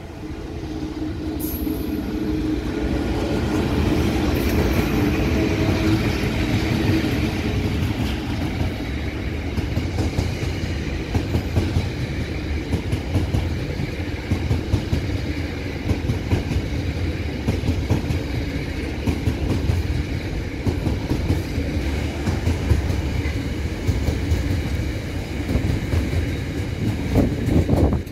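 Diesel freight locomotives passing under throttle, their engines loud for the first several seconds, then a long train of wagons rolling by with rhythmic wheel clatter and rumble.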